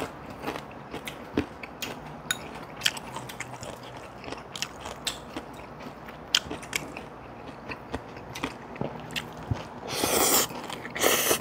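Eating at a table: scattered sharp clicks of utensils against dishes with chewing, and two louder crunching noises near the end.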